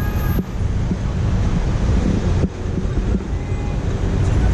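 Wind buffeting the microphone of a car-roof-mounted camera in slow road traffic: a loud, low, uneven rush of noise.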